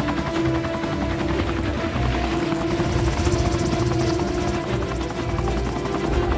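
Helicopter rotor chopping rapidly and steadily, mixed with a film score's held music tones.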